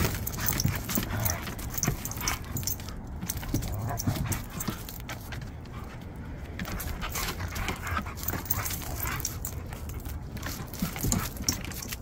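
Two Siberian huskies play-fighting, making short whiny yips and whimpers, with many quick clicks and scuffles of paws on wooden deck boards.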